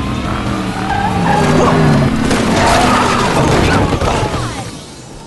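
A car skidding with its tyres squealing, loudest from about a second in to about four seconds and then fading, over a music score.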